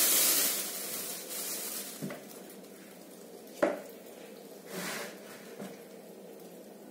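Thin plastic bag rustling and crackling as a raw whole chicken is pulled out of it, fading over the first two seconds. Then a knock, a sharp click about three and a half seconds in, and another short rustle, as the chicken is set into a plastic bowl and handled.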